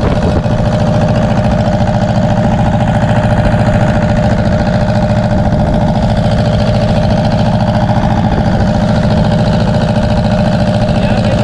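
Fishing boat's diesel engine running steadily: an even low chugging with a steady tone above it, unchanged throughout.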